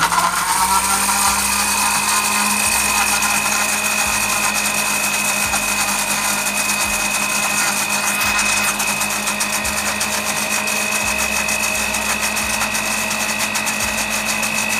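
Philips countertop blender switched on, its motor coming up to speed within the first second and then running steadily with a steady high tone as it purees a liquid mix of egg, garlic, shallots and seasoning.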